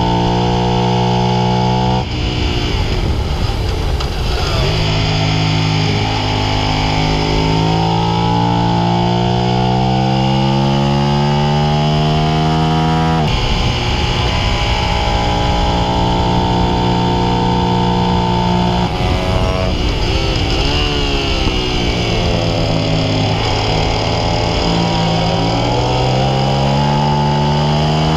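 Suzuki SV650's V-twin engine under hard acceleration on track, its pitch climbing through each gear and dropping sharply at upshifts about 2 s and 13 s in. About 19 s in the revs fall away under deceleration, then climb steadily again.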